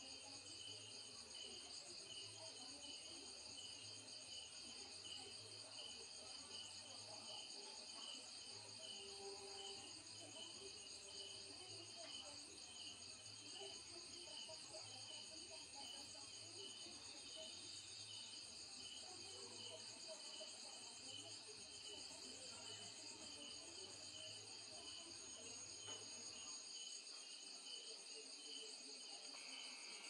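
Faint, steady chorus of night insects, crickets chirring in several high-pitched layers, one of them with a light regular pulse.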